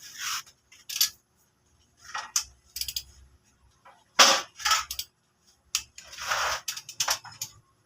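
Hand tools and metal engine parts being handled: scattered metallic clinks and clatters, irregularly spaced, with a few short scraping rushes.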